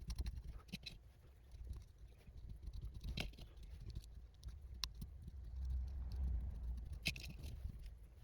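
Hands working on a small FPV drone: scattered light clicks and taps of small parts, over a low rumble from handling.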